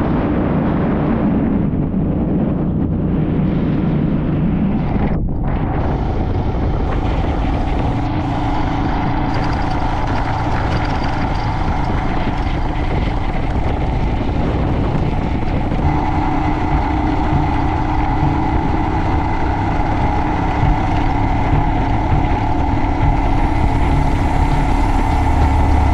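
Royal Enfield Himalayan's single-cylinder engine running at a steady pace while riding, loud and even throughout.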